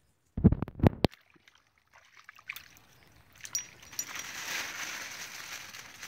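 Two loud, harsh squawks from a hand-held trapped waterbird in the first second. From about three and a half seconds in, a thin plastic bag crinkles and rustles steadily as the bird is worked into it.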